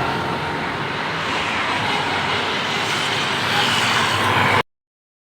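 A road vehicle going past: a steady rush of engine and tyre noise with no horn. It swells a little near the end and then cuts off suddenly.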